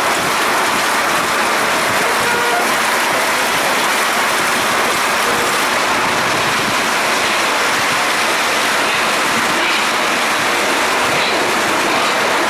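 Paris Métro MP05 rubber-tyred train running through a tunnel, heard from the cab: a steady, loud rolling noise of the train in motion.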